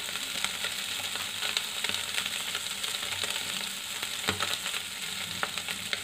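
Chicken liver pieces sizzling in hot oil in a non-stick kadhai: a steady hiss dotted with small pops and crackles, one sharper pop about four seconds in. The liver is fried through and browned.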